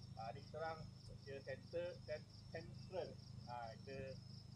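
A steady, high-pitched chorus of night crickets, pulsing evenly, with people's voices talking in the background and a low steady hum underneath.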